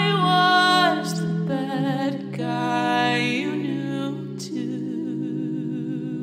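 Closing bars of a slow pop song: a steady low held chord under a singer's voice sustaining long notes with a wavering vibrato.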